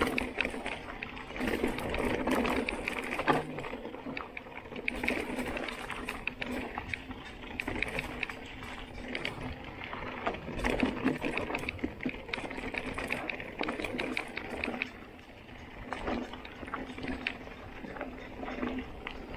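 Mountain bike rolling down a rough dirt trail: tyres running over dirt and stones while the bike rattles over the bumps, with fast mechanical ticking throughout.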